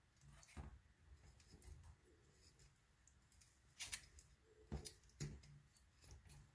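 Faint scattered clicks and metal scrapes from a hand-held copper pipe cutter being turned around a copper pipe, with a few sharper clicks in the second half.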